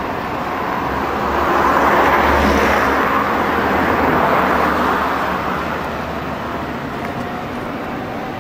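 Street traffic: a car passes close by, its tyre and engine noise swelling about a second in and fading away by about six seconds.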